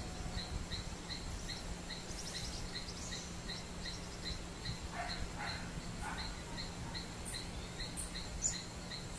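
Outdoor field ambience: a short chirp repeating evenly about three times a second, a few brief bird calls around the middle and near the end, and a low steady hum underneath.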